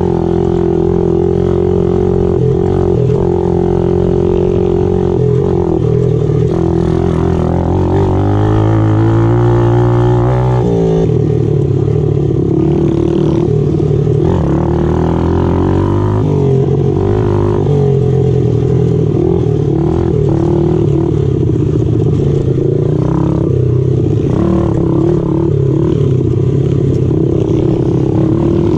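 Small four-stroke pit bike engine running under load as it is ridden along a dirt trail. Its revs climb about a third of the way in, then drop abruptly, and it keeps running steadily through the rest.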